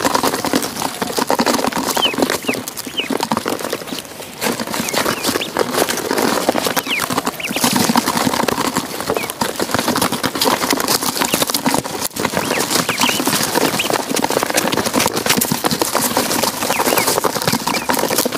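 A crowd of ducklings peeping steadily, with a busy clatter of their bills pecking at a metal dish.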